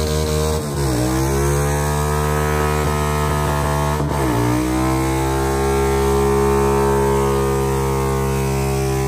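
Motorcycle engine revving hard during a burnout. Its pitch dips and climbs back twice, about a second in and about four seconds in, then holds high and steady.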